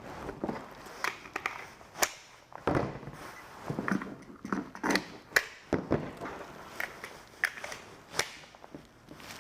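Jacket fabric rustling with irregular clicks and knocks as a handgun is handled and moved in and out of a jacket pocket.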